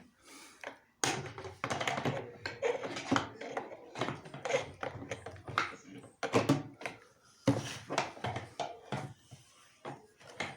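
Irregular tapping and knocking of small hard objects being handled and struck, as in play-repair with tools.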